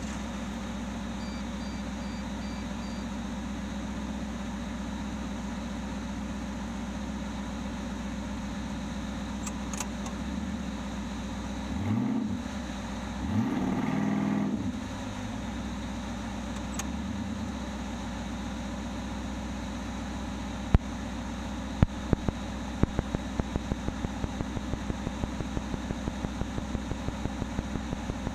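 Stock 1972 Ford Bronco's engine running steadily under way, swelling and rising in pitch twice in quick succession around the middle as it revs. From about three-quarters of the way through, a sharp clicking repeats about three times a second.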